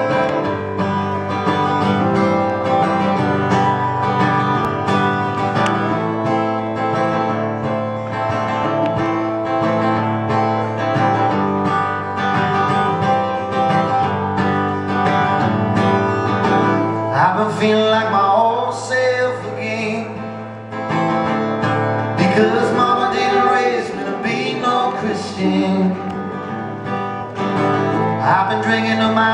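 Live acoustic folk-rock song: an acoustic guitar plays steady chords, and a singing voice comes in a little past halfway and carries on over the guitar.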